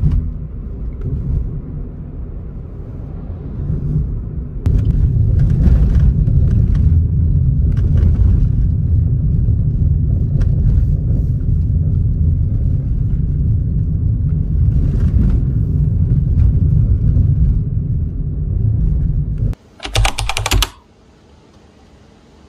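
Low, steady rumble of a car driving along a road, with scattered irregular light clicks over it. It cuts off abruptly near the end, followed by a brief burst of noise and then a much quieter background.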